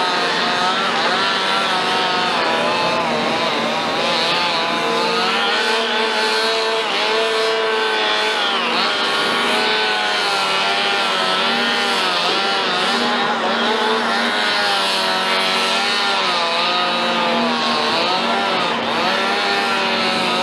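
Cat hydraulic excavator working: its diesel engine runs steadily under load while a whine rises and falls in pitch again and again as the boom, bucket and upper body swing and dig.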